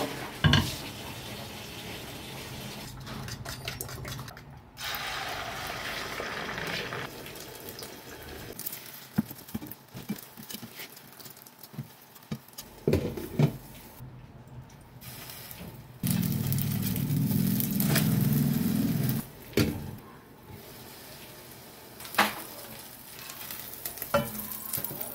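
Beaten eggs frying in a nonstick pan, sizzling, with a spatula scraping and knocking against the pan and a sharp knock as the pan is set on the gas grate near the start. A loud low hum lasts about three seconds about two-thirds of the way through.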